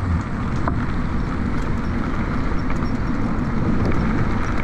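Steady rushing ride noise from a Honda U-Be Cross electric scooter moving along a dirt path: wind buffeting the chest-mounted microphone over the rumble of its heavy-tread off-road tyres on the dirt, with a few faint ticks.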